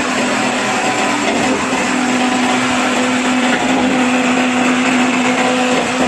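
Trailer concrete pump's diesel engine and hydraulic pump running steadily, with a steady droning tone over the machine noise.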